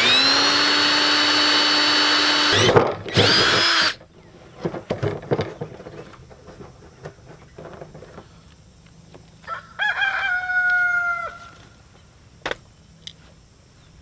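Cordless drill driving a 1 1/4-inch hole saw through the plastic bottom of a barrel: the motor whine rises to speed and runs steady for nearly three seconds, stops briefly, then runs again for a short burst and winds down. About ten seconds in, a short animal call falls slightly in pitch.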